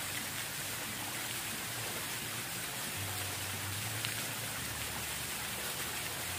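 Steady rush of falling water, with a faint low hum coming and going underneath.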